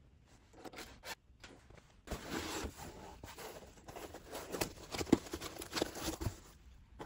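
Hands handling packaging or parts: a quiet start with a few small ticks, then from about two seconds in a dense rustling and scraping with many small clicks and knocks, the sharpest knock a little after five seconds.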